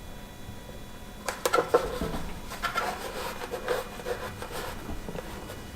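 A sticker being handled and pressed onto a board by hand: a few sharp crinkly clicks about a second and a half in, then irregular scratchy rubbing as it is smoothed down.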